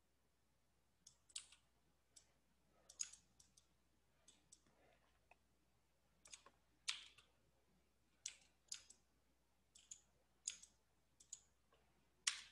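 Quiet, irregular clicking of a computer mouse and keyboard: about twenty short, sharp clicks, many of them in quick pairs.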